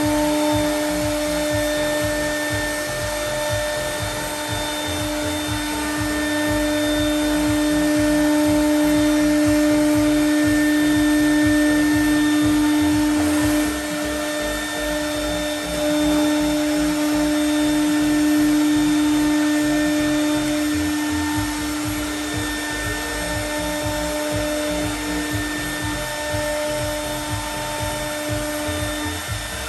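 CNC router spindle milling aluminium composite panel: a steady whine over a constant hiss of cutting, dropping in level for a couple of seconds just past halfway.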